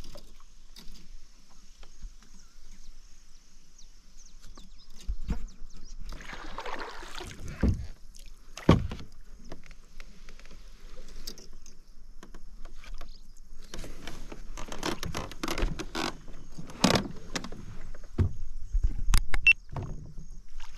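Kayak paddle strokes through shallow, grass-choked water: irregular swishes and splashes of the blades, with scattered sharp knocks.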